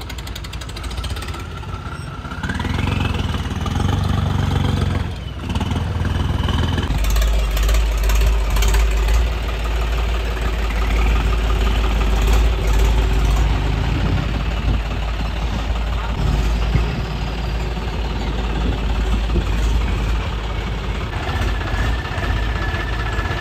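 John Deere 5050D tractor engine running, with a rising rev about two to three seconds in. From about seven seconds on it settles into a deep, steady rumble as the tractor drives.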